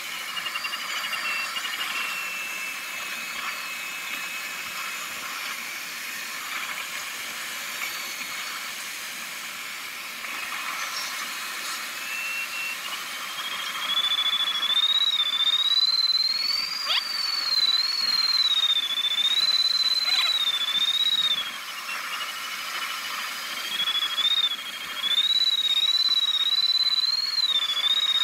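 Sailplane cockpit in flight: steady airflow hiss with an electronic variometer's continuous audio tone that wavers up and down in pitch. About halfway through the tone slides higher and louder and keeps warbling near the top, the vario signalling a change in lift or sink.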